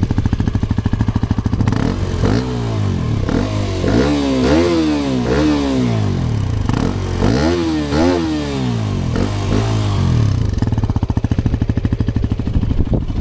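Hero XPulse 210's single-cylinder engine ticking over at low revs, then pulling away: its pitch climbs and drops sharply several times as the motorcycle is accelerated up through the gears, before settling back to a steadier, lower note near the end.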